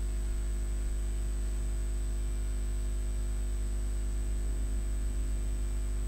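Steady electrical hum with a thin high-pitched whine and hiss, unchanging throughout.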